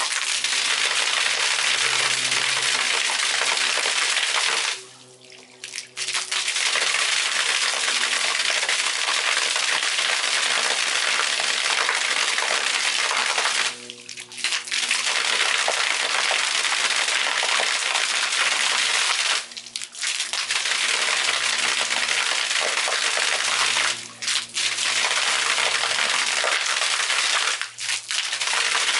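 Water from an arching fountain jet splashing steadily down onto concrete paving, with a faint low hum underneath. The splashing cuts out briefly about five seconds in and for shorter moments several more times later.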